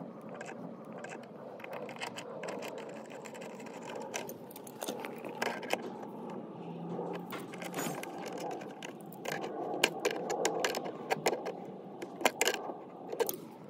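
Brass hose bib stem handled and threaded into the valve body by hand: irregular small metallic clicks and scrapes, more frequent and louder in the second half.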